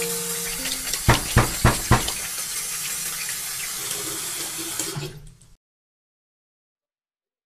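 Water running steadily, with four sharp knocks in quick succession about a second in; the water sound then fades away into silence.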